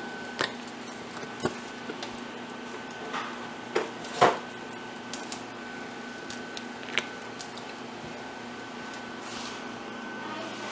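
A handful of light knocks and clicks, the loudest about four seconds in, over a faint steady hum.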